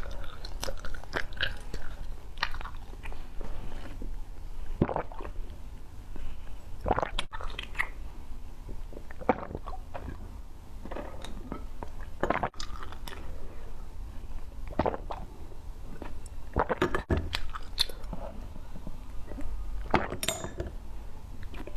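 Close-miked eating sounds: the blue contents of plastic test tubes being sucked out and chewed, with wet mouth noises. Scattered sharp clicks come from the plastic tubes being handled in their rack.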